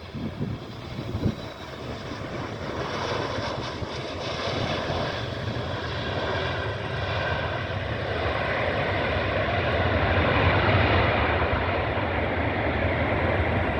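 Jet airliner on approach to land, its engine roar building steadily to a peak about ten seconds in and staying loud to the end, with a faint whine running through it.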